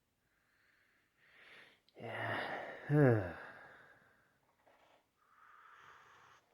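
A man breathing out audibly and sighing between words: soft breathy exhales near the start and near the end, and a longer sigh about two seconds in that runs into a falling, drawn-out "Yeah".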